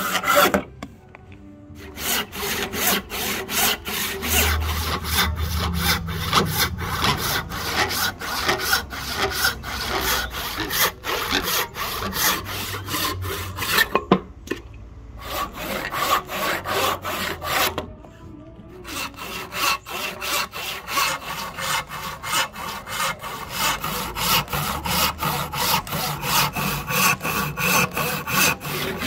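Hand saw cutting wood in steady back-and-forth strokes, stopping briefly three times.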